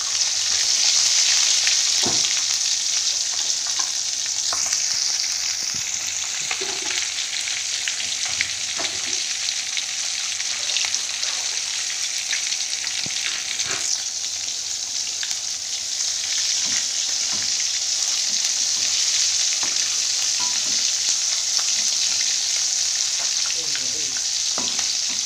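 Gourami fish deep-frying in a wok of used cooking oil: a steady sizzle with a few faint clicks scattered through it.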